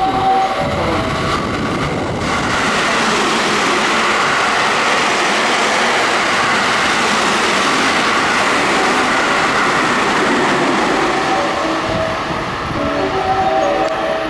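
A train passing through a station: a rush of wheel and running noise that swells about two seconds in, holds steady, and eases off near the end.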